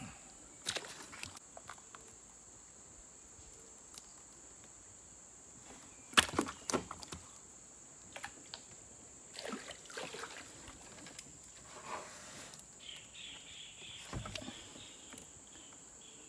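Steady high insect drone, with scattered knocks and clatters as a gill net and fish are handled in a wooden boat; the loudest sharp knock comes about six seconds in.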